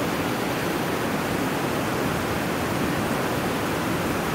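Steady rushing of a whitewater mountain stream cascading over rocks.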